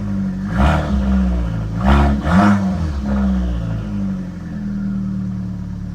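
A 2013 Fiat 500's four-cylinder engine is blipped with the throttle, rising and falling in revs about half a second in and twice around two seconds in, then settling back to a steady idle. The engine answers the throttle, a sign that the replacement throttle body connector with its built-in position sensor is working.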